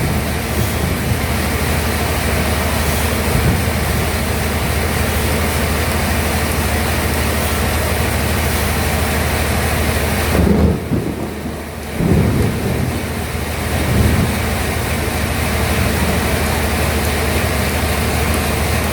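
Sawmill bandsaw running through a large log: a loud, steady rushing noise over a low, even hum. About ten seconds in there is a louder low surge, then the high hiss drops out for about a second before the sawing noise comes back.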